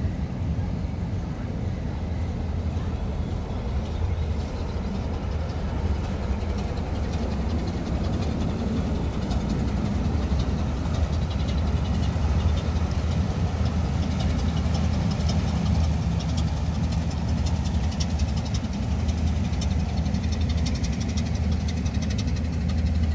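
Inland boat's engine running steadily with a low drone while under way. Water churning in the wake and rushing along the hull grows louder in the second half.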